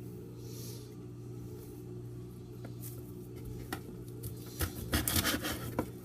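Kitchen handling noises: scrapes, rustles and several sharp knocks in the second half, over a steady low hum.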